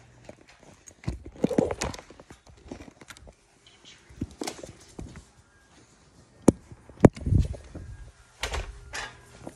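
Footsteps and handling noise, with scattered knocks and thumps; two sharp knocks a little past the middle are the loudest.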